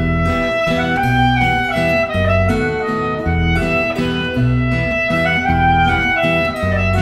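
Instrumental break between sung verses: acoustic guitar and bass keep a steady pulse under a sustained melody line that slides between notes.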